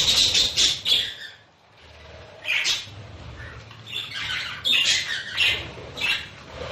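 A flock of budgerigars chattering and squawking in bursts of sharp, high calls: a cluster at the start, one around the middle, and a busier run near the end.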